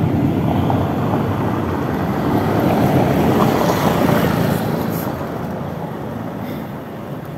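Motorcycle engine running amid street traffic, a steady rumbling noise that swells around the middle and eases off toward the end.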